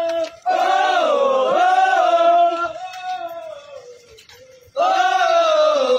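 Group of marching soldiers singing a march chant in unison, in long drawn-out phrases that rise and fall: one about half a second in that fades by four seconds, and a second that starts about five seconds in.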